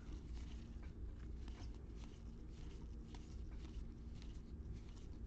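Faint, irregular clicks and light rustles of Panini Score football trading cards being flipped through by hand, one after another.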